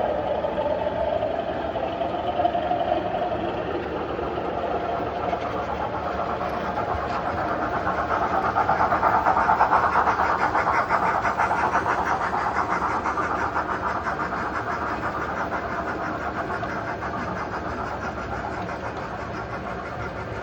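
Model railway train of a Class 37 and two Black Five locomotives, double-headed, running round a curve. It grows louder to a peak about halfway through, with a fast even beat, then fades as it moves away.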